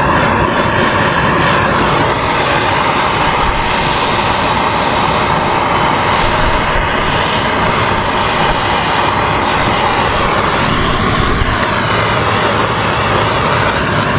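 Handheld gas torch flame burning steadily, a continuous rushing noise that holds even throughout, as it heats thick adhesive-lined heat-shrink tubing over a wire splice.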